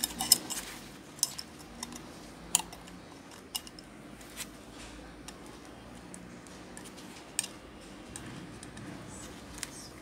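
Scattered light metallic clicks and taps as a circuit board is handled and clamped into a spring-loaded metal PCB holder, the loudest click just after the start.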